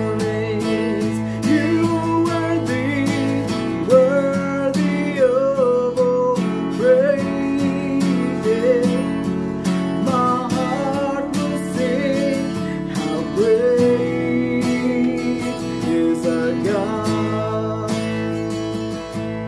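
Acoustic guitar strumming chords with a wavering lead melody above it, an instrumental passage of a worship song.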